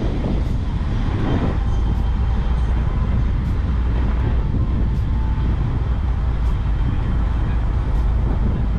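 A steady low rumble with no clear onsets, heaviest in the bass, and a few faint high ticks.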